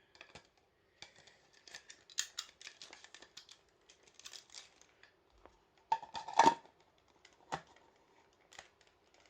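Plastic clicks, rattles and scraping as D-cell batteries are fitted into an old battery-powered lantern and its case is worked back together, with a louder clack about six and a half seconds in.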